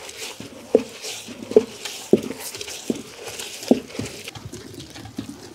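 Traditional hand-turned stone wet grinder: a stone pestle rolled round a stone mortar, grinding grated coconut with roasted spices into a paste. A wet, gritty scraping with a dull knock of stone on stone a little more than once a second.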